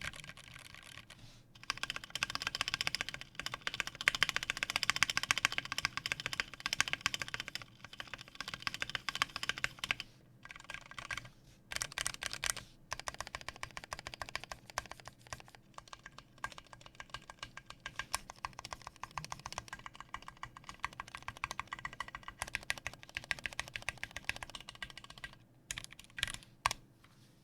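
Typing on a custom KBDFans Tofu 60% mechanical keyboard with lubed Gateron Brown tactile switches on an aluminium plate, PBT keycaps and greased Durock stabilizers: a fast, dense run of keystrokes with a few brief pauses, heaviest in the first third and thinning out near the end.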